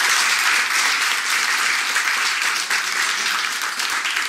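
A roomful of people applauding: dense, steady clapping that eases slightly near the end.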